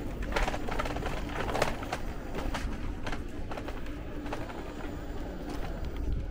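Bicycle rolling over cobblestones: its tyres and frame rattle with many irregular clicks and knocks over a steady low rumble.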